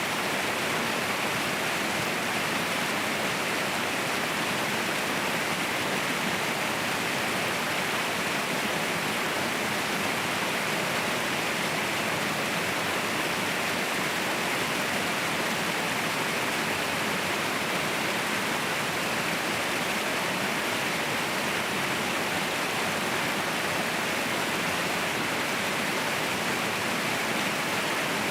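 Mountain waterfall roaring: a steady, unbroken rush of falling water, strongest in the upper-middle range, with no splashes or changes standing out.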